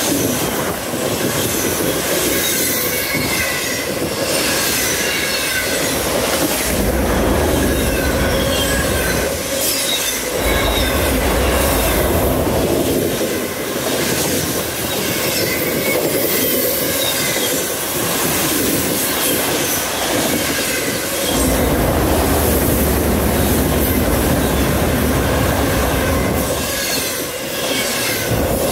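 A freight train of autorack cars passes close by at speed: a steady rolling clatter of steel wheels on rail, with high wavering wheel squeal over it. A deep rumble comes and goes several times.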